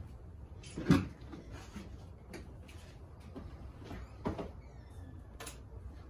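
A few separate knocks and bumps, the loudest about a second in and another a little after four seconds, with lighter clicks between, over a low steady hum.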